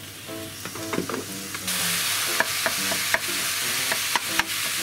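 Minced chicken breast frying in oil in a hot frying pan, the sizzle turning loud about two seconds in as the meat is spread out. Sharp clicks of a wooden spatula knock against the pan as it is stirred.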